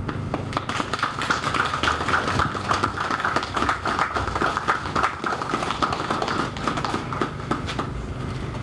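Audience applauding: a dense, steady patter of hand claps.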